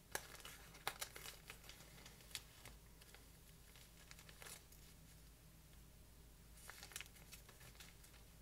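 Faint crinkling and rustling with scattered small crackles as strung guinea feathers are handled and a big one is picked out. The crackles come in clusters: through the first couple of seconds, again around the middle, and once more near the end.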